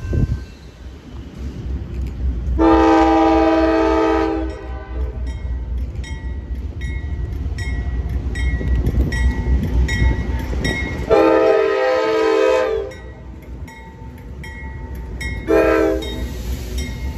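Norfolk Southern diesel locomotive's multi-chime air horn sounding two long blasts and then a short one, the opening of the long-long-short-long grade-crossing signal, over the steady rumble of the train.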